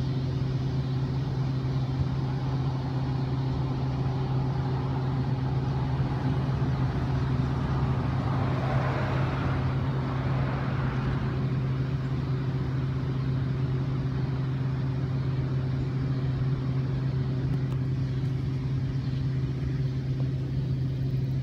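A steady low mechanical hum with a couple of fainter higher overtones runs throughout. A broader rush of noise swells and fades about halfway through.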